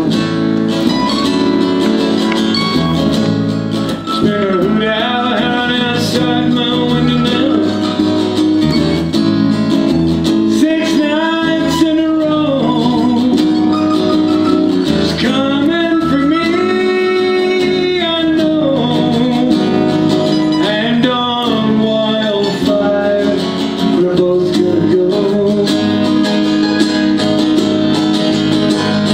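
Live acoustic country-folk band playing: guitars strummed and picked under a melody line that bends in pitch.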